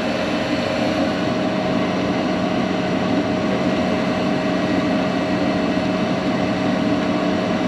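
Nordyne low-fire mobile-home gas furnace running: a steady rush of air from the blower with a constant motor hum. The unit stays running, after loose connections on its control board were reseated.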